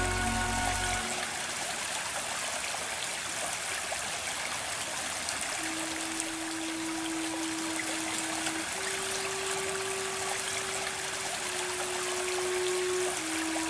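Running water of a stream, a steady rushing hiss. Background music fades out about a second in, and soft held notes return from about halfway.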